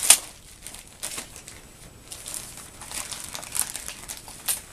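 Gift-wrapping paper crinkling and rustling in the hands as a present is unwrapped. The rustles come unevenly, with a sharp crackle right at the start.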